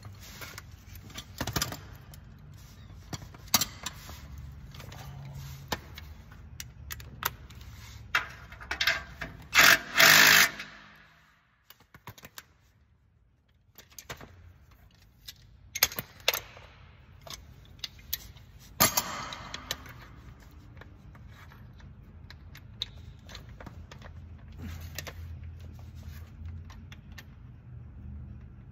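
Hand tools clinking, rattling and scraping against exhaust fasteners and being set down, with one louder burst about ten seconds in and a sharp clack a little before twenty seconds.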